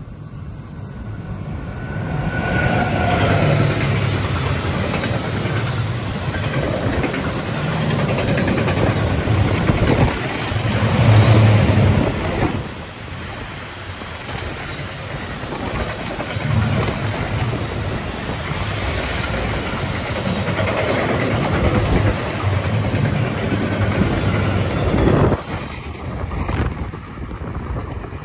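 Freight train of loaded double-deck car-transporter wagons, hauled by an electric locomotive, passing close by. A steady rumble of rolling wheels with rail clatter and occasional knocks, loudest about ten to twelve seconds in, falling away about 25 seconds in as the end of the train goes by.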